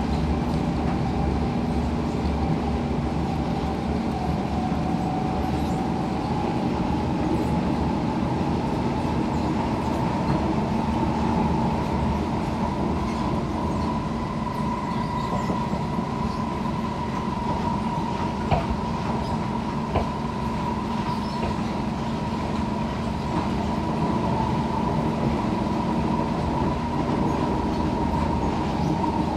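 Interior running noise of an SMRT C651 Siemens metro train: a steady rumble of wheels on rail with a motor whine that rises a little in pitch a few seconds in and then holds steady. Two sharp knocks come about two-thirds of the way through.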